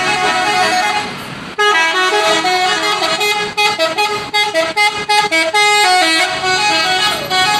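Bus telolet horns, the multi-trumpet musical air horns of Indonesian buses, sounding in a horn contest. A held chord opens, then from about a second and a half in comes a fast run of short notes jumping up and down in pitch like a melody, ending on longer held notes.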